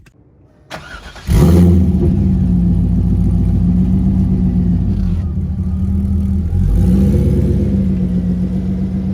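C5 Corvette's V8 engine starting about a second in, then running steadily with a slight dip and pickup in revs near the middle.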